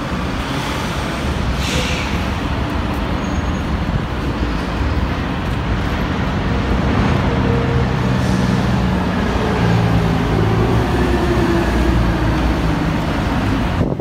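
City road traffic passing close by, a steady rush of tyres and engines. A heavy vehicle's engine hums with a pitched drone that grows stronger in the second half, and a short hiss cuts in about two seconds in.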